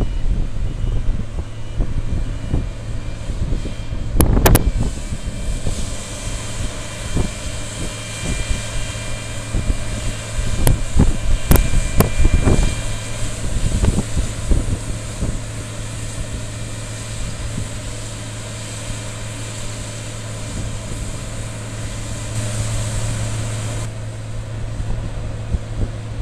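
Claas Lexion 450 combine harvester running steadily while unloading grain through its auger, a constant machine hum, with wind buffeting the microphone. A few sharp knocks come about four seconds in and again around twelve seconds in.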